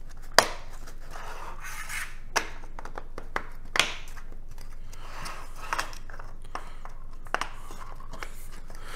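Small 3D-printed plastic trays being stacked and fitted onto one another on a wooden tabletop: light scraping and rubbing, with a few sharp plastic clicks, the loudest about half a second in and the others scattered through the rest.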